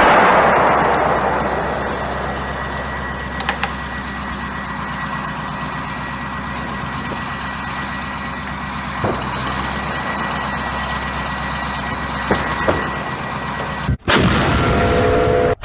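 Rumble of an artillery gun's shot dying away over the first second or so. A steady low hum with a few small clicks follows. Near the end, after a brief cut to silence, another sudden loud blast trails off.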